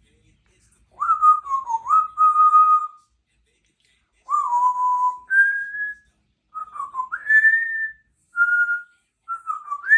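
Congo African grey parrot whistling a string of about five short whistled phrases that slide up and down in pitch, with brief pauses between them.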